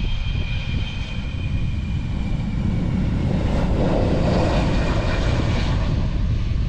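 Jet engines of a large four-engine military jet running on the runway: a steady roar with a thin high whine early on, swelling to its loudest about four to five seconds in as the aircraft passes close by. Wind buffets the microphone throughout.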